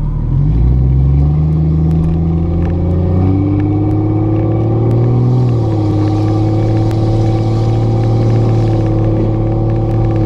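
Engine and road noise inside a moving car's cabin: the engine rises in pitch as it accelerates for about the first five seconds, drops to a lower note, then runs steadily at cruising speed.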